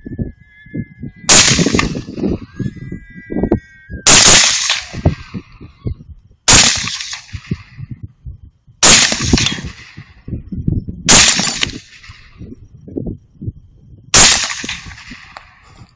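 Six rifle shots from a Savage MSR 10 semi-automatic rifle chambered in 6.5 Creedmoor, fired two to three seconds apart, each with a short ringing tail.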